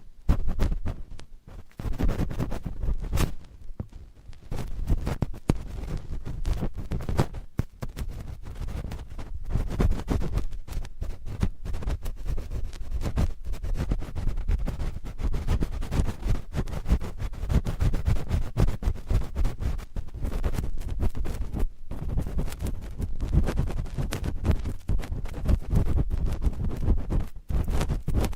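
Cotton swabs scratching and rubbing directly on a microphone: a dense, unbroken run of close, rapid scratches with a heavy low rumble from the contact.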